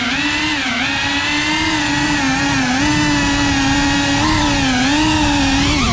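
Brushless motors and propellers of a 3.5-inch cinewhoop FPV drone in flight: a steady buzzing whine that dips and rises briefly in pitch a few times as the throttle changes.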